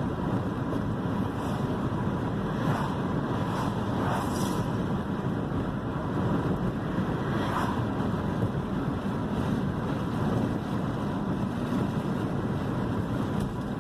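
Road and engine noise heard inside the cabin of a 2001 Toyota Corolla driving along, with a few faint knocks from the rear end over bumps, the sign of worn-out rear struts.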